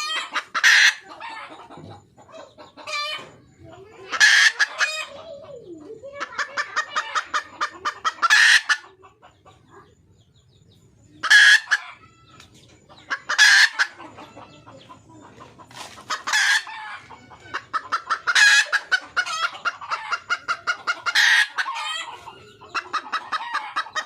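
Red junglefowl hen calling for a male: loud, sharp calls every few seconds, with quick runs of clucks in between and a short pause about ten seconds in.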